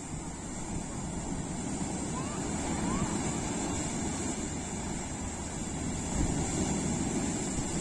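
Sea surf breaking and churning white against a rocky shore, swelling louder a couple of times, with wind rumbling on the microphone.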